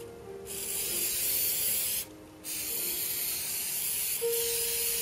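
Aerosol can of 3M spray adhesive spraying a steady hiss in two long bursts, with a short pause about two seconds in.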